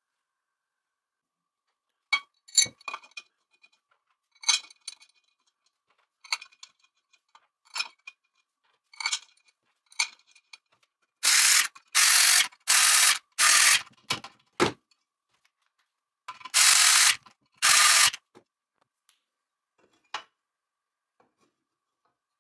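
A small powered screwdriver runs in short bursts, four in quick succession and then two more, driving the screws that fix an aluminium side plate to the frame of a 3018 CNC router. Before that, light clinks and taps of the metal parts being handled and fitted.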